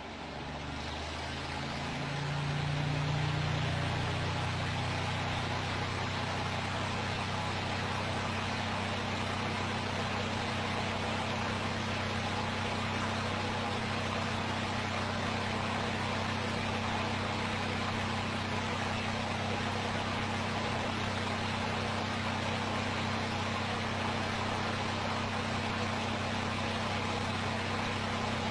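Motor of a spinning LED fan clock spinning up, its hum rising in pitch over the first few seconds, then running at a steady speed with an even hum and hiss.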